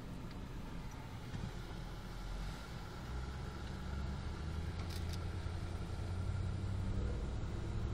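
V8 car engine running steadily, heard from inside the cabin with road noise, with a couple of faint clicks about five seconds in.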